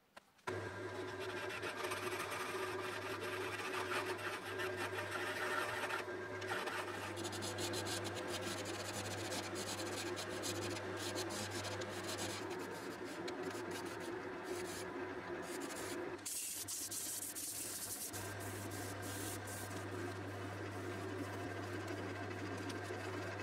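Wood lathe running with a steady motor hum while a scraper cuts and rubs on the spinning wooden blank. About sixteen seconds in the sound changes to hand sanding against the turning piece.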